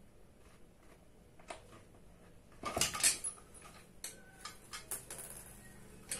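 Metal clinking and clattering as an office chair's chrome five-star base and casters are handled on a tile floor: a burst of clatter about halfway through, then scattered lighter clicks.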